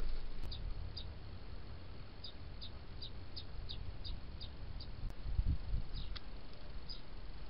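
Faint outdoor garden ambience through a trail camera's microphone: a steady light hiss with short high chirps every half second or so, a couple of sharp clicks, and a brief low rumble about five seconds in.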